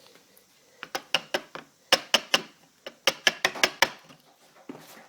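Hand tools clicking and tapping on a door's latch hardware and wooden jamb: a quick, irregular run of sharp clicks from about a second in, with one more near the end.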